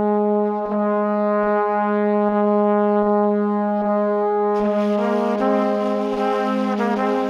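Background music: a long held brass note, joined by a higher melody about five seconds in.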